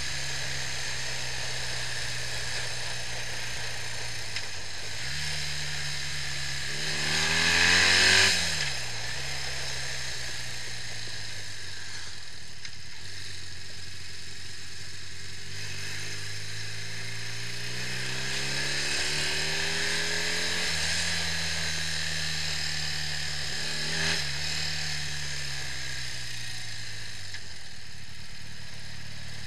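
BMW R65's air-cooled flat-twin engine running on the road, its pitch rising and falling with the throttle. It surges loudest about eight seconds in and climbs again more slowly later on.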